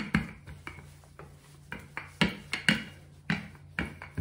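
Wooden rolling pin rolling out puff pastry dough on a countertop, knocking about twice a second as it is pushed back and forth, over a faint steady low hum.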